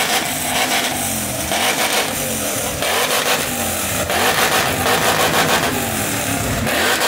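Car engine revved hard again and again through a loud exhaust, its pitch rising and falling with each blip of the throttle.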